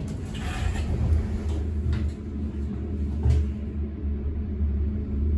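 Inside a moving elevator car: a steady low rumble as the car travels upward, with a few short clunks.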